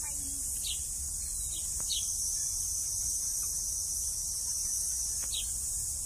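Steady high-pitched drone of insects, with a few short bird chirps scattered through it.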